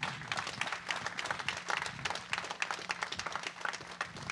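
Audience applauding: many hands clapping irregularly.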